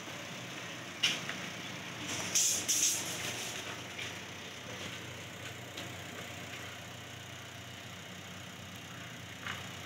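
Honda car engine idling steadily while hooked up to a carbon-cleaning machine for decarbonisation. A sharp click comes about a second in, and a brief hiss follows about two and a half seconds in.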